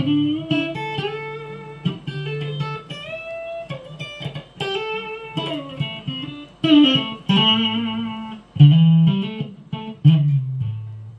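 A guitar played through the Mesa M-Pulse 600 amplifier as it is tested under power after its output MOSFETs were replaced: plucked single notes and short phrases with some bends and slides. The playing stops abruptly at the end.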